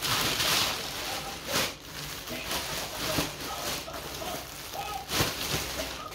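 Thin plastic carrier bag and clear plastic wrapping rustling and crinkling as hands open the bag and pack wrapped cloth into it.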